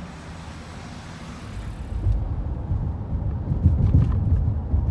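Road traffic at a railroad grade crossing for about two seconds. After a cut, a louder low rumble with irregular thumps takes over, from a moving vehicle.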